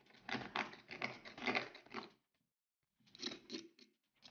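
A quick run of short scratching clicks as crumbly melted plastic is picked and scraped off the black plastic top cover of a hot air rework gun handle. The clicks stop for about a second, then a few more follow.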